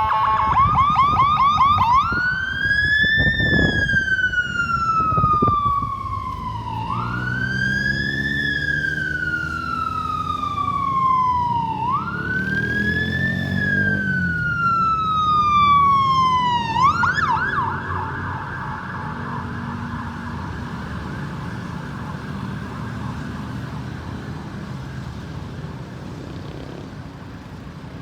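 Ambulance's electronic siren: a brief fast yelp, then three slow wail cycles, each rising quickly and falling over about five seconds, then a switch to a rapid yelp that carries on and fades. Vehicle engine and road noise run beneath it.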